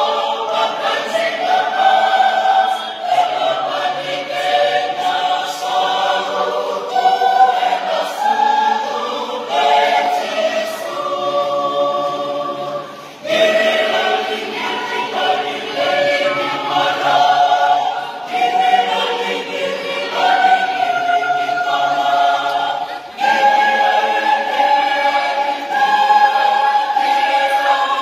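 Mixed choir of women's and men's voices singing a hymn in parts, with held notes, breaking briefly between phrases about halfway through and again near the end.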